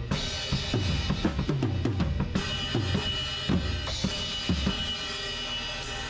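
Acoustic drum kit played close up: a quick run of kick, snare and tom strokes with cymbals, the tom hits dropping in pitch as they ring. The strikes stop almost five seconds in, leaving a steady ringing wash.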